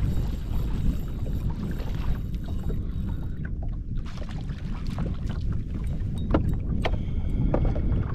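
Steady low rumble of wind and water around a small personal watercraft. Scattered sharp clicks and knocks come in the second half as a redfish is swung aboard and handled.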